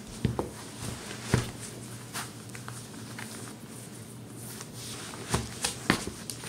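Sneakers being put on and laced: a few sharp knocks of the rubber soles on a hardwood floor, the loudest near the start and near the end, with soft rustling from the laces and a faint steady low hum underneath.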